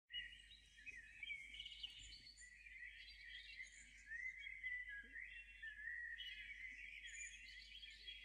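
Birds chirping and singing, faint: many short high calls overlapping without a break.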